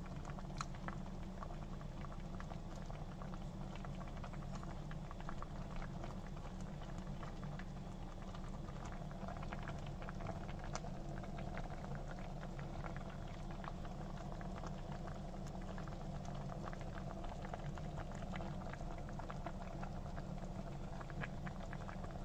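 Salmon pieces cooking in shallow liquid in a stainless steel pot: a steady simmering bubble with many small scattered pops, over a steady low hum.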